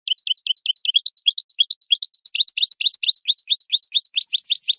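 European goldfinch singing: a fast run of short, repeated chirping notes, about eight a second, with higher notes joining in near the end.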